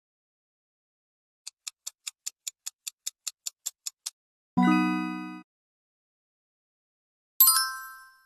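Quiz sound effects: a countdown timer ticking about five to six times a second for two and a half seconds, then a short buzzer-like tone lasting under a second. Near the end comes a bright bell ding.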